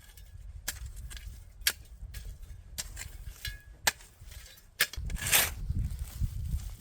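Wood fire crackling, with sharp single pops of burning wood about once a second, then a louder burst of rustling hiss and low rumble about five seconds in.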